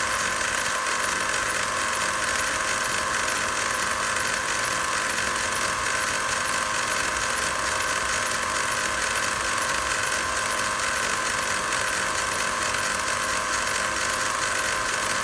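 Mercedes GL450's M273 V8 engine idling steadily, with a constant high-pitched crackling chatter from the accessory belt drive: the sign of worn belt idler pulleys.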